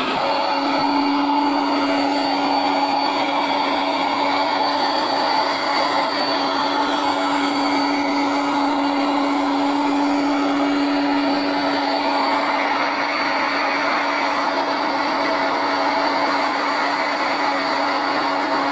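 Electric air pump running steadily, inflating a Bestway airbed, with a constant whirring hum.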